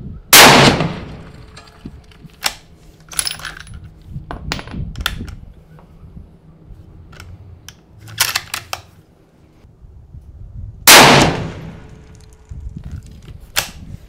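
Two shots from a 6.5 Creedmoor bolt-action rifle, about ten and a half seconds apart, each with a short ringing tail. Between them, and again after the second shot, come clusters of metallic clicks as the bolt is worked to eject the case and chamber the next round.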